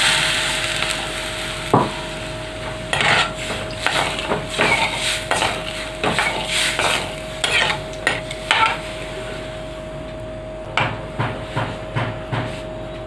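Metal ladle stirring in a metal kadai of tempering water with mustard seeds, curry leaves, dried red chillies, salt and sugar, the start of a sugar syrup for dhokla. The sizzle of water just poured onto hot oil dies away in the first second or so. Then come irregular clinks and scrapes of the ladle against the pan.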